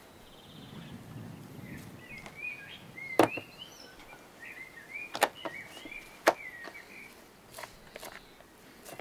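A butcher's knife cutting raw lamb on a wooden cutting board, with several sharp knocks of the blade against the board, the loudest about three, five and six seconds in. Birds chirp in the background.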